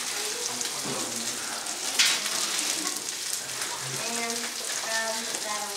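Steak sizzling as it sears in a hot pan, a steady hiss, with one sharp knock about two seconds in.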